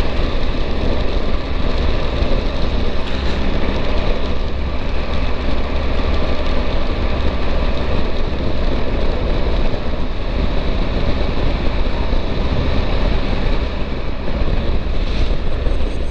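Steady wind noise on the camera's microphone with the Triumph Tiger 1200's inline-triple engine and tyres running underneath at a steady cruise on a wet road.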